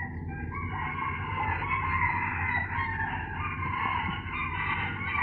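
Chickens clucking and calling continuously in the background, over a steady low hum.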